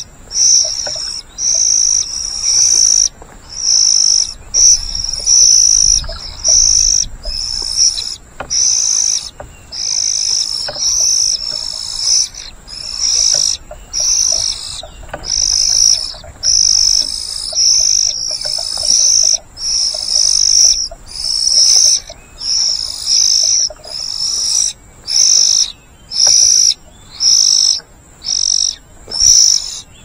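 Oriental magpie-robin nestlings begging for food as the parent feeds them: a steady run of short, high calls on much the same pitch, about one and a half a second.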